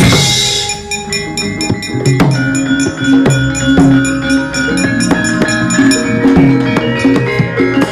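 Javanese gamelan ensemble playing, with a drum and many sharp knocking strokes under steady ringing metallophone notes, opening with a loud, bright clash.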